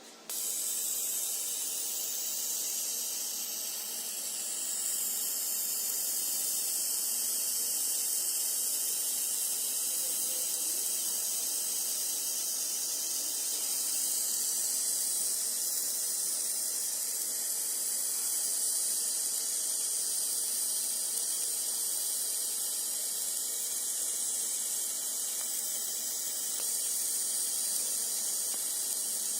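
50 W fiber laser marking machine marking copper: a steady high-pitched hiss that starts abruptly a moment in.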